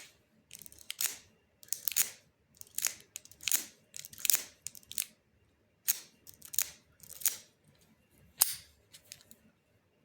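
Half-diamond lock pick scraping over the pins inside a Brinks hardened padlock while a tension wrench holds light tension: about a dozen short, high, scratchy metal strokes, one after another with brief pauses between.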